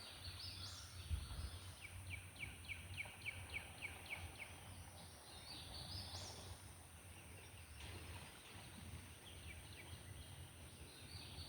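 Faint songbird song: a fast series of about a dozen short down-slurred notes a couple of seconds in, with a few more chirps later, over low outdoor background noise.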